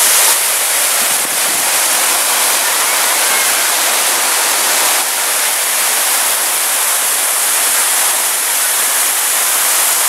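Waterfall water cascading over rock slabs and falling from a height: a loud, steady rush of water.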